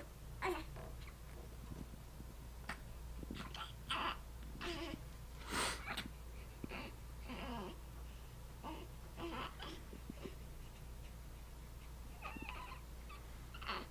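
Baby fussing: a string of short whimpers and small cries, each breaking off after a moment, a few of them sharp and abrupt.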